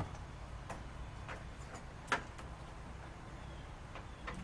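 A few light clicks and taps, the sharpest about two seconds in, from hand tools and battery-terminal hardware being handled over a low steady hum.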